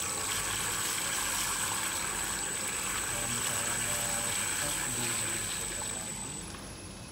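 High-speed dispersing mixer running, its blade churning liquid in a bucket, with a steady high-pitched whine from the motor drive over a rushing, water-like noise. The sound fades and stops about six seconds in as the mixer is switched off.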